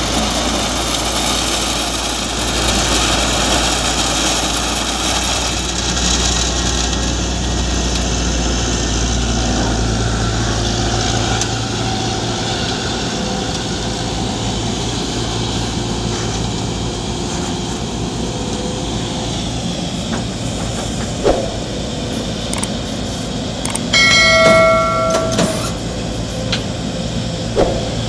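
Heavy diesel engines of concrete mixer trucks and excavators running steadily at a construction site. About three-quarters of the way through, a short horn sounds for about a second and a half; a couple of sharp knocks are heard before and after it.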